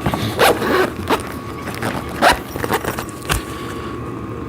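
Zipper on a padded exercise-machine cushion cover being pulled in several short rasps, with handling noise and a low thump a little over three seconds in.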